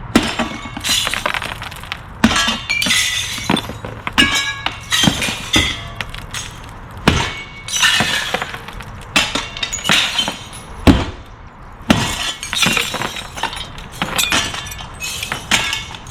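Window panes being smashed out: repeated blows with glass shattering and shards tinkling down, many times over.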